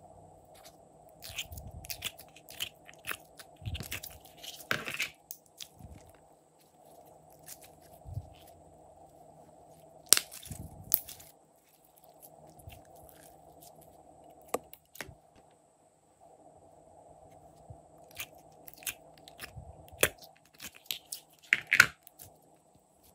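Glossy slime being squeezed, stretched and pressed by hand, giving bursts of sticky crackling and popping clicks from trapped air. The loudest pops come about ten seconds in and again near the end, over a faint steady hum.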